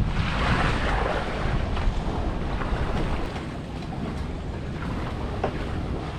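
Wind buffeting the microphone over the wash of surf on a beach, with a few faint short ticks; the wind eases about three seconds in.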